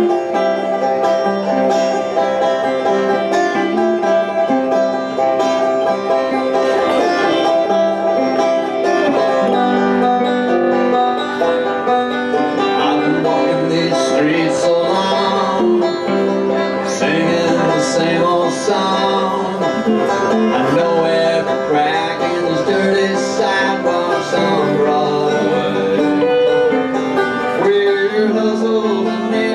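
Banjo and electric guitar playing bluegrass together at a steady tempo, with no singing.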